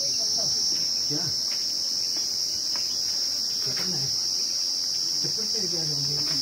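Steady high-pitched trill of insects, with faint low buzzes of flying insects rising and falling in pitch several times as they pass.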